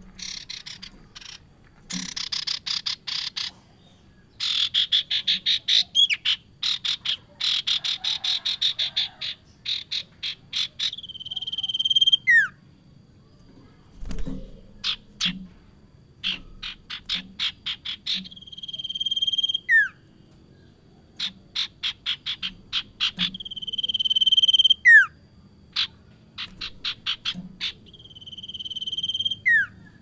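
Common iora (sirtu) singing vigorously. Each phrase is a quick run of sharp repeated notes, then a held whistle that swells in loudness and drops steeply in pitch at the end. The phrase repeats about every six seconds.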